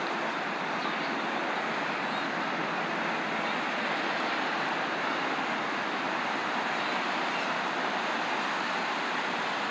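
Steady, even outdoor city background noise with no distinct events, the kind of wash that distant traffic makes.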